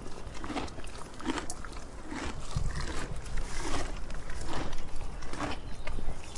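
A cow's rhythmic crunching and tearing in grass, one crisp stroke roughly every 0.8 seconds, with no mooing. A low rumble joins under it about a third of the way through.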